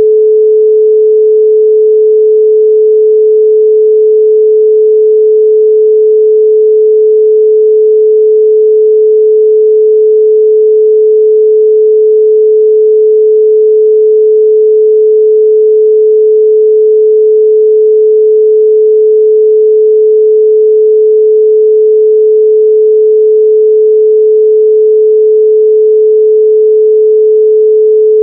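A pure 432 Hz sine tone, held steady and loud without any change.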